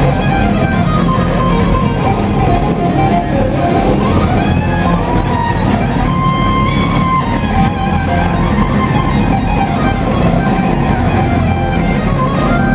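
Live rock band playing: electric guitar over bass and a steady drum beat, with gliding, bending guitar notes in the middle.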